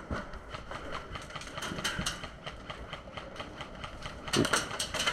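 Airsoft guns firing: scattered sharp shots, then a quick rapid burst about four and a half seconds in.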